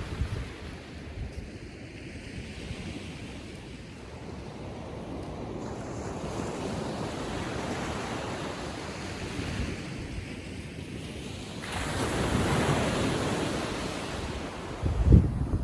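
Ocean surf washing on a beach in calm seas, swelling and easing, with a louder wave breaking suddenly about twelve seconds in. Wind rumbles on the microphone near the end.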